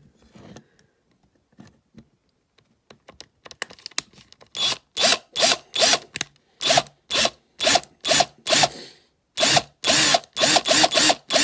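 Small electric drill pulsed in short bursts, about two a second from about four and a half seconds in, each burst spinning up and back down, drilling out a rivet in a diecast model car. A few faint clicks come before the drilling.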